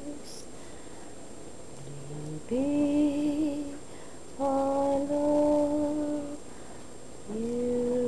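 A woman humming a slow lullaby in long held notes, with short pauses between them.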